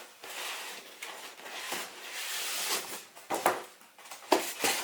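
Packaging being handled during an unboxing: rustling for the first few seconds, then a few sharp clicks and knocks near the end as items in the box are moved.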